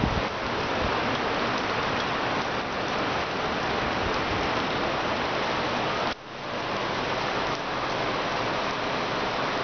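Heavy rain pouring down steadily on pavement, with a sudden brief dip in level about six seconds in.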